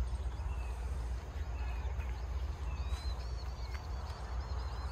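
Outdoor field ambience: a steady low rumble, with faint bird chirps and, from about three seconds in, a high twittering bird call.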